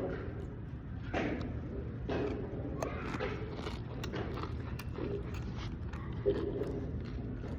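Tortilla chips dipped in nacho cheese being bitten and chewed close to the microphone: a string of short, sharp crunches over a steady low hum.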